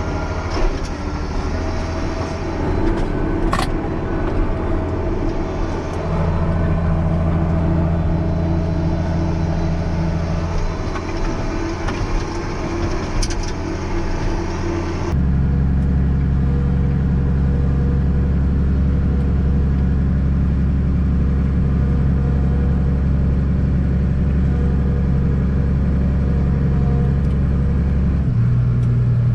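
Engine of farm machinery running steadily. About halfway through it changes abruptly to a deeper, steadier engine drone.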